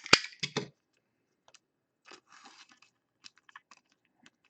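Trading cards and their plastic being handled: a sharp crinkling crackle with clicks in the first half-second, then scattered faint clicks and rustles.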